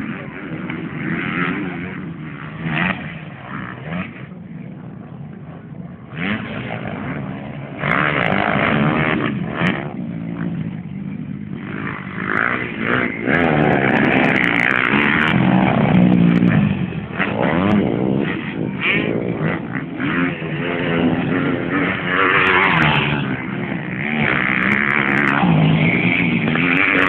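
Motocross dirt bikes revving and racing past on a dirt track, their engine pitch rising and falling as they accelerate and shift. The sound swells in several passes, loudest through the middle and again near the end.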